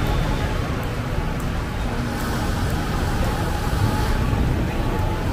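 Steady, loud rumble of road traffic.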